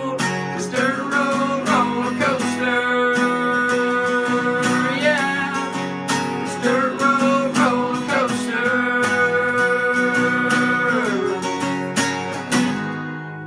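Closing bars of an acoustic country song: strummed acoustic guitar under long held melody notes, fading out near the end.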